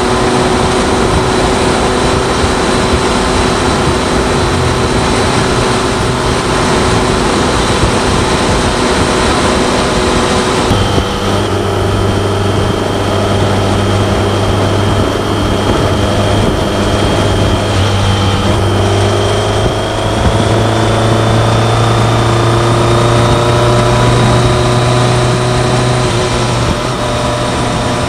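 BMW K1100LT's four-cylinder engine running steadily under way, with wind and road noise over it. The sound changes abruptly about a third of the way in. Later the engine note dips briefly, then climbs steadily as the bike accelerates.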